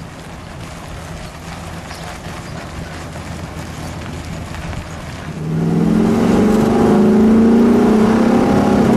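1957 Dodge Coronet's factory V8 running as the car moves slowly. About five and a half seconds in it turns louder and climbs steadily in pitch as the car accelerates hard, heard from inside the open convertible.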